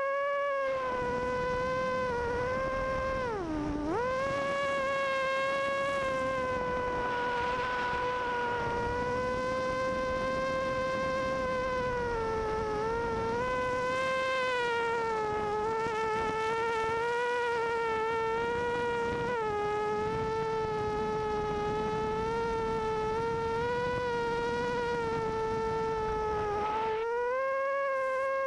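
ImmersionRC Vortex 250 Pro racing quadcopter's brushless motors and propellers whining in flight, the pitch wavering up and down with throttle. About three and a half seconds in the throttle is cut briefly and the pitch dives sharply before climbing back. A rushing wind noise runs underneath the whine.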